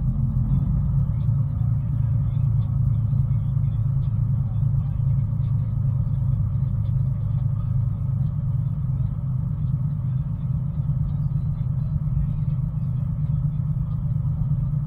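Steady low engine and road drone heard inside a truck's cab while it drives along a highway.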